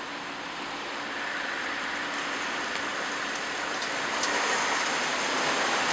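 Rain arriving, a steady hiss that grows gradually louder, with a few faint ticks of drops.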